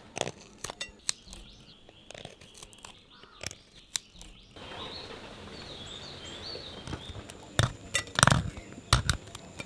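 Scattered sharp clicks and knocks, the loudest a cluster near the end, with a bird chirping for a couple of seconds in the middle.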